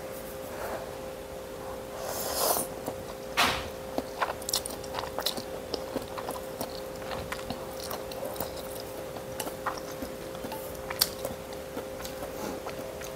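A person slurping noodles in soup, loudest about two seconds in, then chewing, with scattered small clicks of chopsticks against a stainless-steel bowl. A steady faint hum runs underneath.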